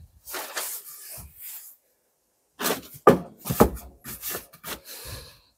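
Wooden boards being laid on a plastic tarp: a stretch of tarp rustling, a short pause, then a cluster of dull knocks and scrapes as the boards are set down and slid into place.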